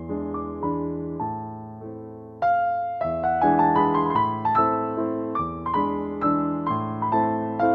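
Background piano music: gentle, evenly paced notes, growing louder about two and a half seconds in.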